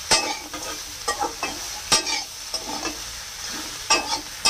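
Metal spatula scraping and knocking against a metal kadai as crab pieces, potatoes and vegetable stalks are stir-fried in oil and spice paste, with a steady sizzle underneath. Four sharp scrapes come at uneven intervals, about a second apart.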